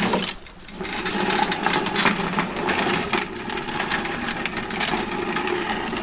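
Craftsman walk-behind lawn mower being pushed across a concrete floor on its wheels: a steady rolling rumble with many rattling clicks, starting about a second in.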